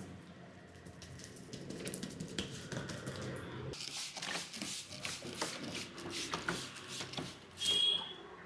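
Hands massaging a man's head: rubbing on the hair and scalp with many quick taps and pats. The rubbing grows denser and hissier about four seconds in.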